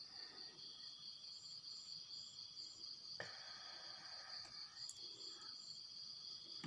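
Faint steady chirring of crickets, with a higher chirp pulsing a few times a second. A brief soft rustle about three seconds in.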